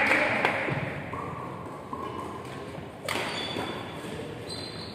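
Badminton play: sharp knocks of a racket hitting the shuttlecock, one at the start and a sharper one about three seconds in, echoing in a large indoor hall.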